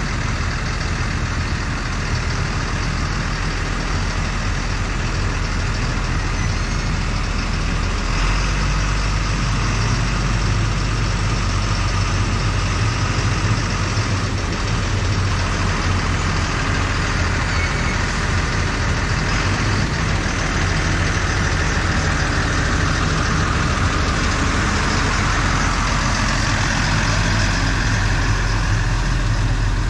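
Tractor diesel engine running steadily, its note stepping up about eight seconds in.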